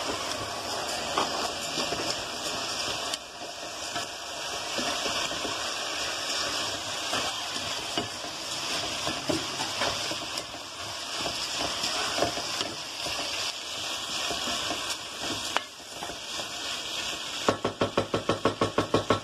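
Raw rice frying in hot oil with potato and onion in a pot: a steady sizzle with the scrape of a wooden spoon stirring it through. Near the end, a quick run of rhythmic spoon strokes, about seven a second.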